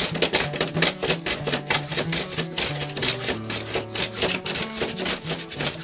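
Repeated rasping strokes of a small block plane shaving glue and enamel off a bamboo fly-rod blank, over background music with a stepping bass line.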